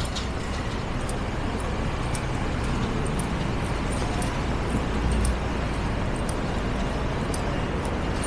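Steady street traffic noise from cars on the road alongside, a dull even hum with a low rumble swelling briefly about five seconds in as a vehicle passes.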